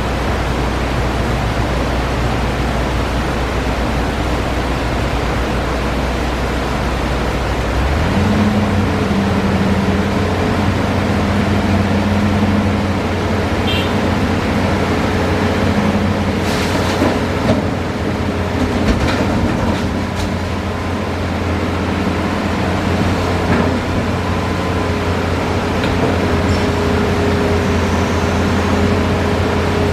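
Hitachi Zaxis 5G excavator's diesel engine running steadily, its note stepping up to a higher pitch about eight seconds in as it revs up under load. A few short knocks and clatters come through in the middle stretch.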